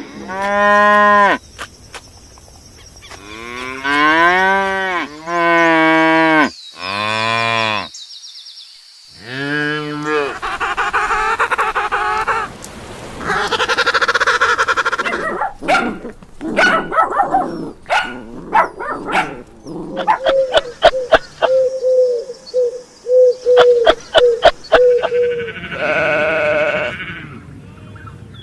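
A run of farm animal calls. In the first ten seconds there are five long, pitch-bending lows typical of cattle mooing. Noisier calls follow, then a run of sharp clicks, a string of short quick repeated notes, and one more drawn-out call near the end.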